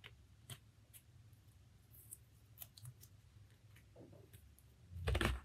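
Faint, scattered clicks and crinkles of small strips of tape being torn and pressed down onto a metal die and paper.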